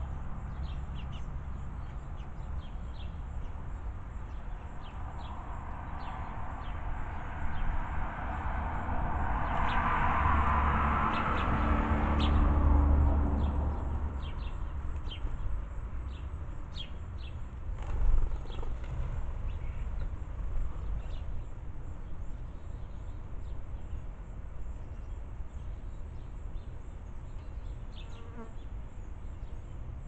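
Sparrows chirping in short, scattered calls over a steady low outdoor rumble. A rushing noise swells and fades between about six and fourteen seconds in, and a single knock sounds about eighteen seconds in.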